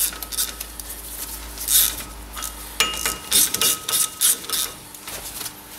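Irregular metallic clicks and clinks of a ratchet winding M8 bolts into the threaded holes of a front brake disc, to jack the disc off the hub.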